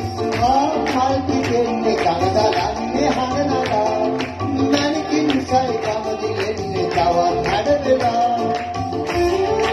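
Live band playing a Sinhala song: a man singing through a microphone over hand drums, guitars and keyboard, with a steady drum beat.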